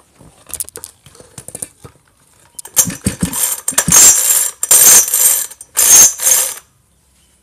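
Recoil starter of a 'type 58' (58 cc class) two-stroke chainsaw pulled four times in quick succession, each pull a loud ratcheting rasp, after a few faint clicks; the engine does not catch. The starter is damaged, which the owner puts down to wear.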